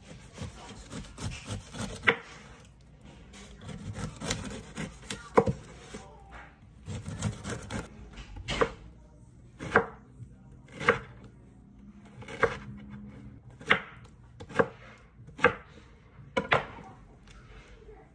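Chef's knife cutting a pineapple on a wooden cutting board: rough slicing through the fruit with scattered knocks at first, then, from about halfway, the blade chopping through and knocking the board about once a second.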